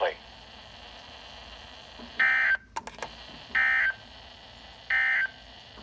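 Emergency Alert System end-of-message signal: three short bursts of SAME digital data tones, about a second and a half apart, closing a tornado warning broadcast. A brief click comes between the first and second burst.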